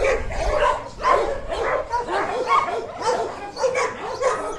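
Several dogs barking and yipping at varying pitches in quick succession, several calls a second, while they chase each other in play.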